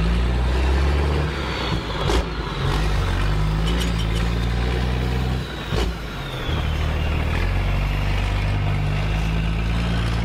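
Simulated diesel truck engine sound from the sound unit of an RC-converted Bruder Unimog toy truck, running steadily and rising and falling as it drives, with a dip about five and a half seconds in. A faint high electric whine glides in pitch over it, and there are a few light clicks.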